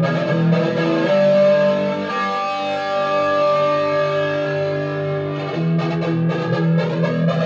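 Electric guitar played through an Ibanez FL301 DX flanger pedal with the effect switched on, its slow sweep moving through the notes. A chord rings out about a second in and is held until near the end, when picked playing starts again.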